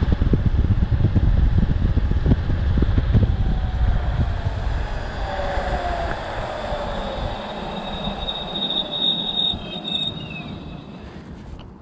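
Wind rushing over the microphone and the whine of a NAMI Klima Max electric scooter's motors, falling in pitch and fading as the scooter slows down. A high thin whine comes in later, near the end.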